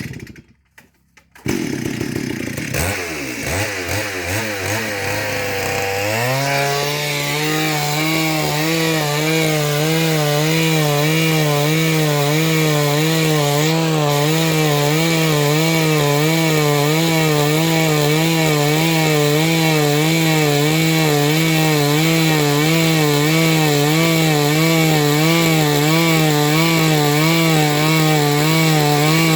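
Chainsaw engine revving up over the first few seconds, then running at a steady high speed for the rest of the time, its pitch wavering slightly as it cuts into the gamhar trunk.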